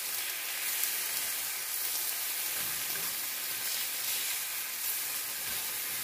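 Lemon slices sizzling in caramelized brown sugar in a hot frying pan, a steady hiss, as they are turned over one by one.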